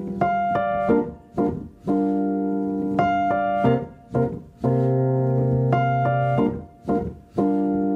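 Piano music: chords struck one after another, each held about a second, with short breaks between them.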